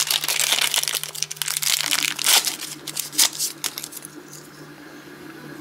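Crinkling and crackling of a small plastic bag being ripped open by hand to free a key. It dies down about three and a half seconds in.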